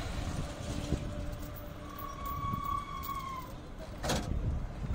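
Low, steady rumble of an idling vehicle engine and highway traffic, with one steady high tone, like a distant horn, lasting about a second and a half about two seconds in, and a short rushing noise about four seconds in.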